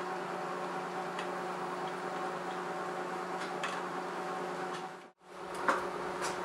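Steady workshop hum with a few light, sparse clicks of a wrench and small metal parts being handled on a headlight assembly; the sound drops out briefly about five seconds in.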